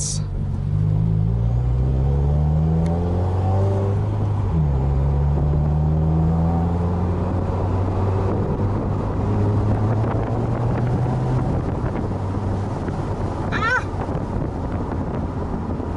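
2016 Subaru WRX's turbocharged 2.0-litre flat-four (FA20) exhaust with an axle-back muffler delete, heard from inside the cabin while accelerating. The note rises in pitch, drops at a gear change about four seconds in, and rises again. It then settles to a steadier note under growing road noise.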